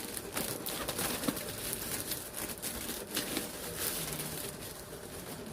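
Parcel packaging being handled and opened: plastic wrapping rustling and crinkling in quick irregular crackles.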